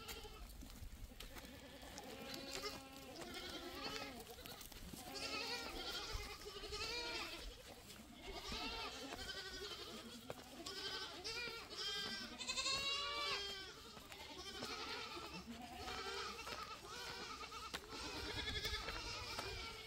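A herd of goats, many of them young kids, bleating over and over, with several calls overlapping and hardly a pause.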